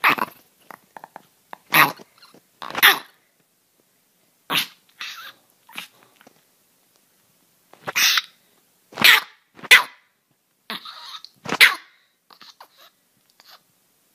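Chihuahua barking: about ten short, sharp yaps, irregularly spaced with pauses of up to a couple of seconds between them.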